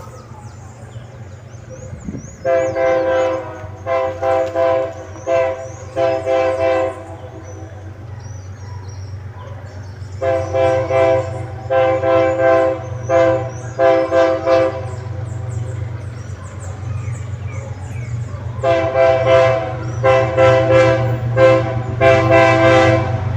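GE ES44ACi diesel locomotive's chord air horn sounded in three runs of short rhythmic blasts, a Christmas horn tune, over the steady running of its GEVO V12 engine, which swells near the end as it accelerates.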